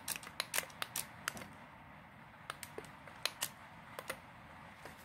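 Irregular sharp clicks and taps of a small toy RC car's plastic chassis and wheels being handled and turned over, with a short lull midway.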